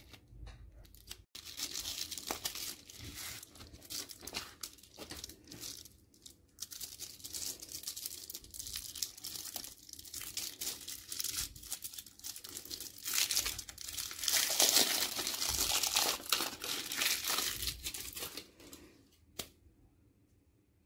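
KitKat wrapper being torn open and crinkled by hand: the paper sleeve ripped, then the gold foil inner wrapper peeled back and crumpled, loudest about two thirds of the way through. Near the end the crinkling stops and there is one sharp snap as the wafer bar is broken.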